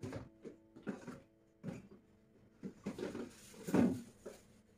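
Faint, scattered knocks and rustles of plastic food containers being set on refrigerator shelves.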